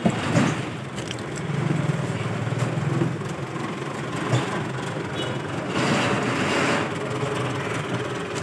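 Market background noise with a vehicle engine running steadily, and a couple of sharp knocks of a steel knife against a wooden chopping block, one right at the start and another about four seconds in.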